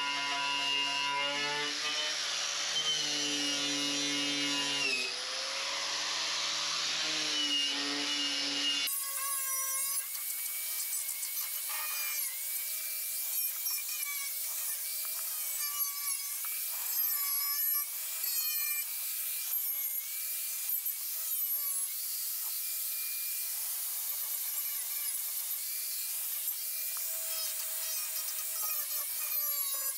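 Electric grinder fitted with a wire wheel, stripping surface rust and bare-metal paint spots from a steel fender panel. The motor whines, and its pitch dips each time the wheel is pressed onto the metal, over a scratchy rasp. About nine seconds in the sound changes abruptly: the low hum drops away and the whine sits higher.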